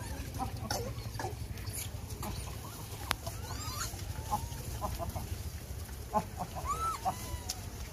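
Scattered short chirping animal calls, many of them brief rising-and-falling chirps, over a steady low rumble, with one sharp click about three seconds in.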